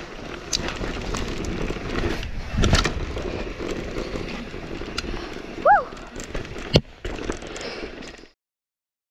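Helmet-camera audio of a mountain bike being ridden down a dirt and rock slope: a continuous rough rumble and rattle from the tyres and bike, with sharp clacks from hits on the terrain and a brief squeak partway through. The sound cuts off suddenly near the end.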